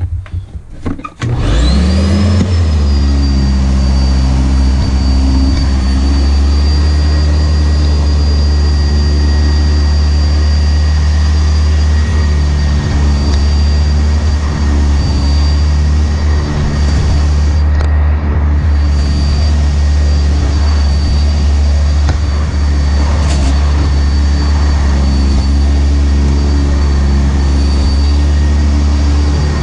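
Sanitaire SC679J upright vacuum cleaner switched on about a second in, its motor spinning up with a rising whine and then running steadily as it vacuums.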